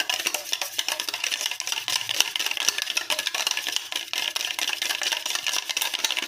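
Wire whisk beating egg and sugar in a stainless steel bowl: a fast, steady clatter of wire tapping against the metal.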